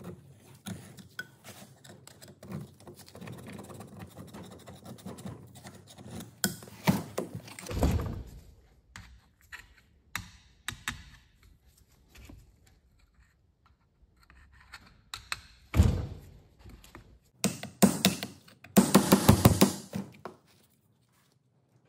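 Steel screwdriver scraping, prying and knocking on a Zetor 3011 cylinder head: scattered scrapes and taps, a heavier thunk about a third of the way in and another past the middle, and a fast run of scraping strokes near the end, the loudest part.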